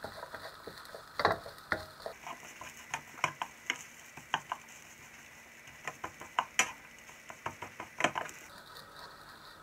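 Spatula scraping and tapping irregularly against a nonstick wok while fried rice is stirred and broken up on low heat, over a faint frying sizzle.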